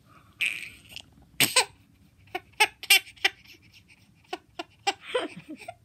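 Baby giggling in short, separate bursts, mixed with quick kissing smacks on the cheek.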